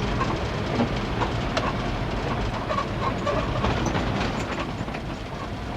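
Car driving on a plowed, snowy road, heard inside the cabin: a steady low rumble of engine and tyres with scattered small clicks and rattles.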